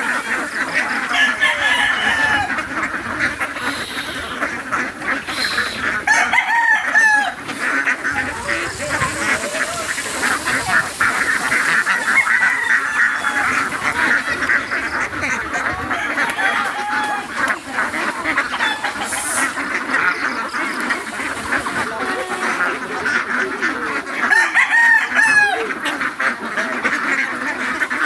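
A large flock of domestic ducks quacking non-stop, many calls overlapping into a dense chatter, with louder calls close by about seven seconds in and again near the end.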